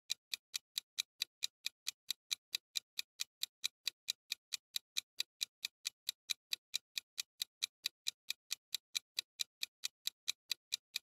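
Clock-ticking countdown-timer sound effect: sharp, even ticks at about four a second.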